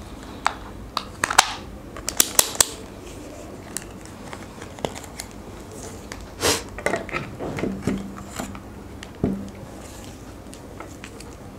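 A handheld multimeter and its test leads being handled on a table: irregular sharp plastic clicks and taps with short rustles of the lead cables, the loudest knocks about a second in, at two to three seconds and near the middle.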